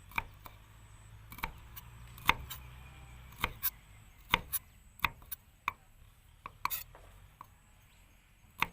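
Knife chopping chili peppers on a cutting board: irregular sharp knocks, some in quick pairs.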